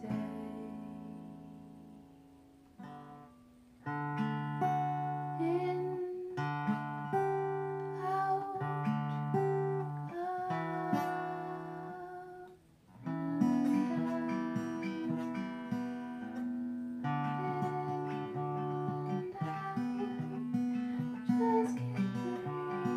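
Acoustic guitar being strummed and picked slowly, one chord after another left to ring. The first chord fades away for several seconds before playing picks up again about four seconds in, and there is a second fade to near silence a little past the middle before the strumming resumes.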